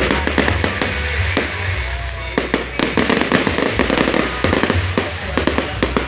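Fireworks going off: a rapid scatter of sharp pops and crackles that grows denser about two seconds in, with music and its bass line playing underneath.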